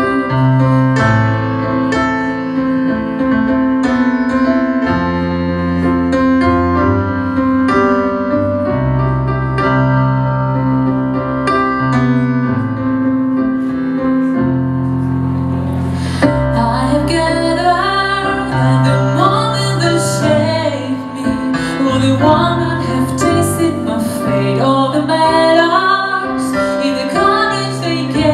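A woman singing to her own digital piano accompaniment: held piano chords alone for roughly the first half, then her voice comes in over them about halfway through and carries on to the end.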